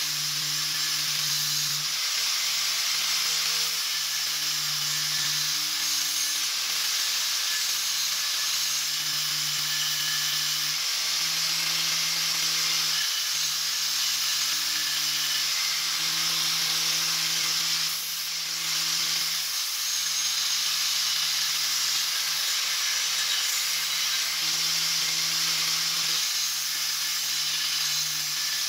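Homemade belt grinder driven by an angle grinder, its abrasive belt grinding the edge of a piece of old circular saw blade: a steady hiss of steel on the belt with the motor running underneath, easing briefly about two-thirds of the way through.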